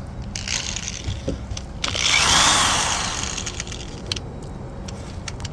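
A power tool run in two bursts against metal, the second longer and louder, its whine rising and then falling, scraping a battery ground-wire contact clean to rule out a bad ground as the cause of a no-crank, no-start fault.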